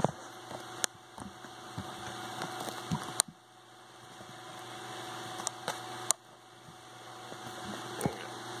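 A camera being handled and repositioned on its stand: scattered clicks and knocks, a few close together, over a steady electrical hum.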